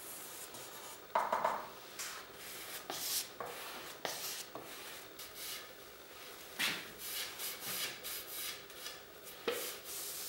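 Stain being spread over white oak cabinet panels with a pad applicator and then wiped with a rag: repeated rubbing and wiping strokes on the wood, with a few light knocks, the loudest about a second in.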